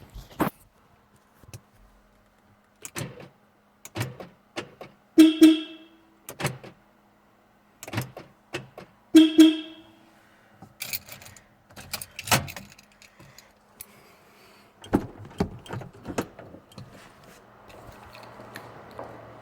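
Porsche car horn giving two short alarm chirps, about four seconds apart, the signal from locking or unlocking. Sharp clicks and clunks from the door and lock come before and between the chirps, with a cluster of louder knocks near the end.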